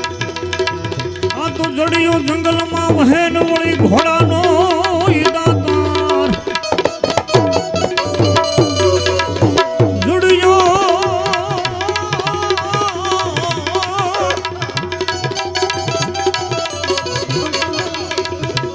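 Devotional folk music interlude without words: tabla keeping a steady rhythm under sustained drone notes, with an ornamented, wavering melody line over it.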